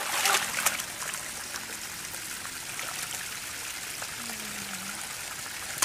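Hands splashing and churning shallow muddy paddy water while groping for fish: splashes in the first second, then a steady trickling of water.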